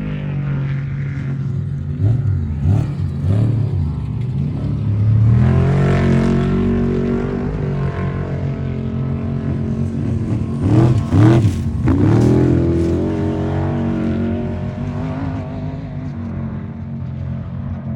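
Off-road trophy truck engine running hard, its pitch dipping and climbing with repeated rev swings, loudest a little past the middle and fading toward the end.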